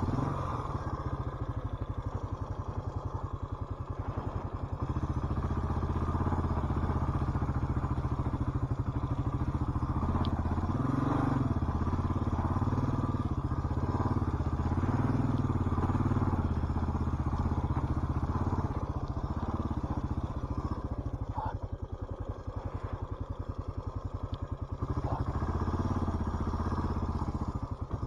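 Suzuki DR650's single-cylinder four-stroke engine running at low trail speed, its pitch rising and falling as the throttle rolls on and off. It eases off about four seconds in and again for a few seconds in the last third.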